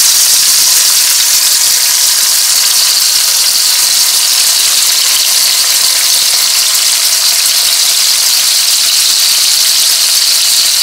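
Stuffed cabbage rolls frying in hot oil in a large pot: a loud, steady, high-pitched sizzle.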